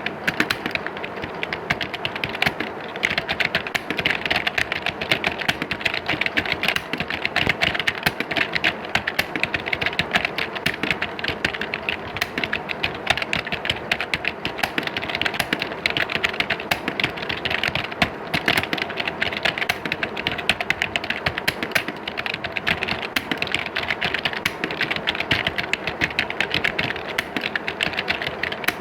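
Many computer keyboards being typed on at once, a dense, continuous clatter of overlapping key clicks.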